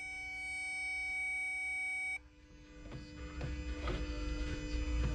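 A multimeter's continuity beep holds steady, signalling a good ground at the sensor connector, then cuts off suddenly about two seconds in. Soft clicks and rustling of hands at work follow, over a steady low hum.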